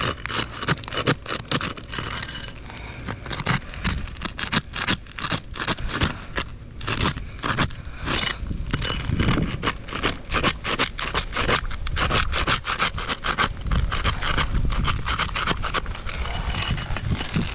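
A pry tool scraping and prying under roof shingles in rapid, repeated strokes, breaking the sealant bond between courses so that one shingle can be lifted out.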